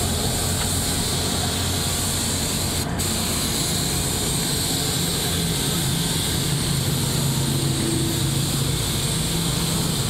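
Compressed-air gravity-feed spray gun hissing steadily as it sprays paint onto a refrigerator panel, with a steady low hum underneath.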